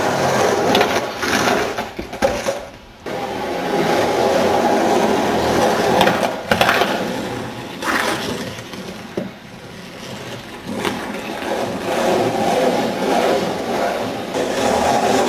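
Skateboard with small wheels rolling over rough asphalt, a steady grinding rumble. A few sharp knocks break it, about two seconds in, around six seconds and near eight seconds, and it drops away briefly twice.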